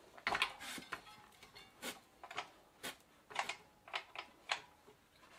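A string of irregular light metallic clicks and clinks from hands working at a bicycle's front wheel hub, about a dozen sharp knocks, a few of them with a brief ring.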